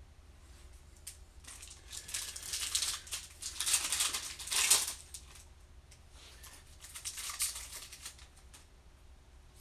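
Foil wrapper of a baseball card pack being torn open and crinkled by hand, with a louder spell of crinkling from about two to five seconds in and a softer one around seven seconds in.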